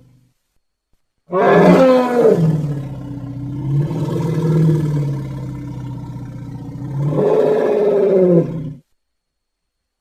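Angry elephant bellowing: a loud call starting about a second in that falls in pitch, holds a lower note, then rises again before cutting off near the end.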